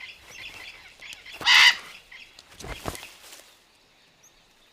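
Macaws calling: softer chatter, then one loud, harsh squawk about a second and a half in. A low thump follows about a second later.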